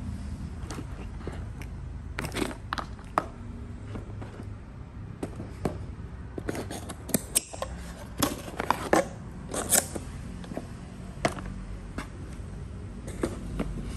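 Scattered clicks, taps and scrapes of a laptop, its charger and cable being handled in a cardboard box, busiest around the middle, over a steady low hum.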